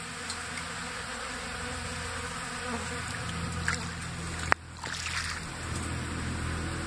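A swarm of hundreds of bees buzzing steadily as they crawl and fly over birdseed on a tray feeder. One sharp click comes about four and a half seconds in.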